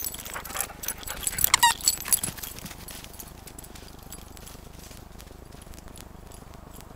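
Several sharp squeaks from a dog's squeaky toy being chomped in play, bunched in the first two seconds among knocks and handling noise. After that it goes quieter, with only faint ticks.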